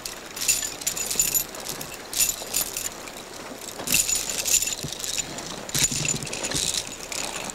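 Metal ice-climbing hardware (carabiners, ice screws and other gear racked on harnesses and slings) jingling in several short irregular bursts as the climbers walk.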